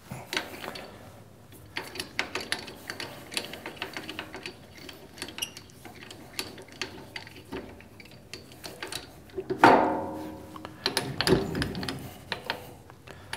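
Keyless drill chuck on a lathe tailstock being twisted tight by hand around a tap shank, its ratchet giving many quick clicks. About ten seconds in comes a louder metal clank that rings briefly, followed by a few more knocks.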